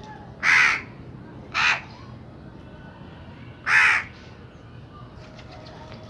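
A crow cawing three times: three loud caws within about four seconds, the middle one shortest.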